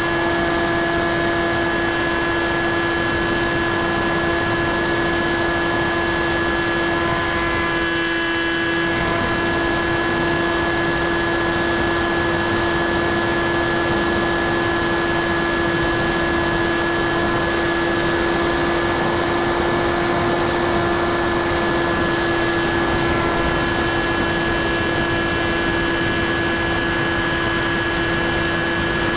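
The electric RC plane's brushless motor and 9x6 propeller run at steady cruise throttle, a constant whine and hum over rushing airflow noise, as heard from a camera mounted on the plane itself.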